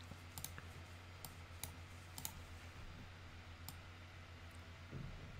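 A handful of faint, irregularly spaced computer mouse clicks over a low steady hum.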